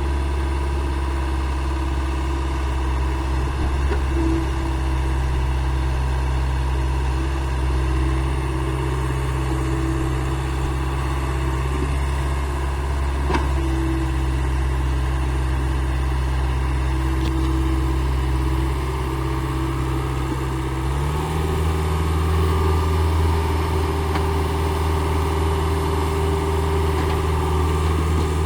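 Construction machine's engine running at a steady speed, stepping up to a higher, steady speed about three-quarters of the way through.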